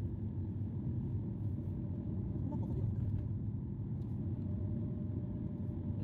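Steady low rumble of a car being driven, its engine and tyre noise heard from inside the cabin.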